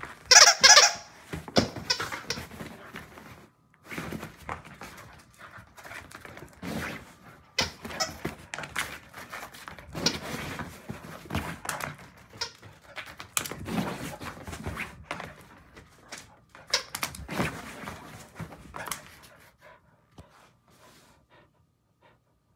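Squeaky dog toy squeaking in many irregular bursts as a dog plays with it, the loudest squeaks in the first second, with a few thumps among them.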